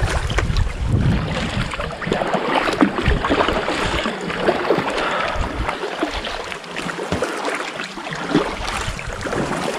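Double-bladed kayak paddles stroking through calm water, with a run of small irregular splashes and drips from the blades.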